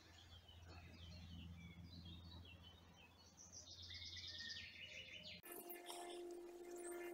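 Faint birds chirping over a low steady hum. About five seconds in the background changes abruptly and a steady held tone comes in under more chirping.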